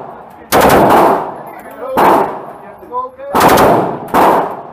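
Short bursts of automatic gunfire, about four in all, each a quick string of shots ringing with echo off the walls of an indoor range.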